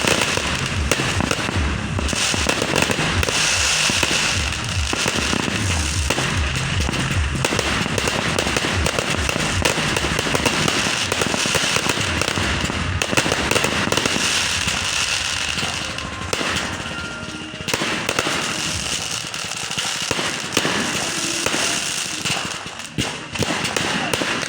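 Fireworks going off in a continuous barrage of rapid bangs and crackling, with dense low thuds through the first half.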